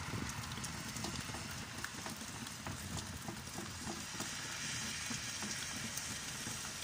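Steady rain falling, with scattered close drips heard as faint clicks and a low rumble underneath.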